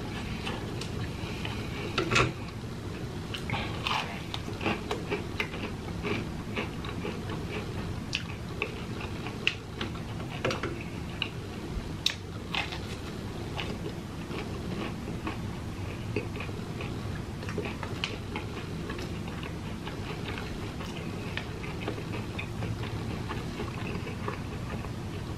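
A person chewing crispy breaded fried chicken nuggets, with irregular crunches and crackles of the breading. A few louder crunches stand out among them.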